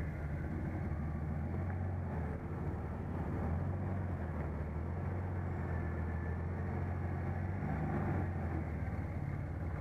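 Jeep Wrangler TJ's engine running steadily at low revs as it crawls up a steep rock ledge, a low, even engine note with no revving.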